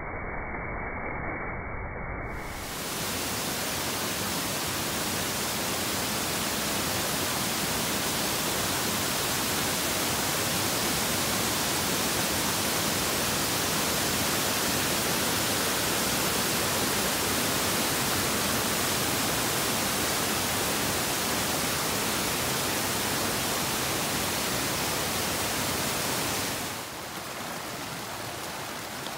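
Steady rush of river water, an even hiss without any rhythm. It starts muffled, turns louder and fuller about two and a half seconds in, and drops to a softer rush a couple of seconds before the end.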